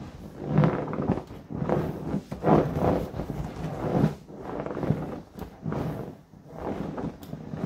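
Inflatable vinyl rocking horse squeaking and rubbing under a bouncing rider, in a repeated rhythm about once a second.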